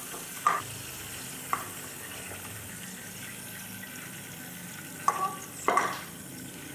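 Hot oil sizzling steadily in a kadai just after frying spiced boiled eggs, with a few short knocks and scrapes of a wooden spatula against the pan as the eggs are lifted out, twice near the start and a cluster near the end.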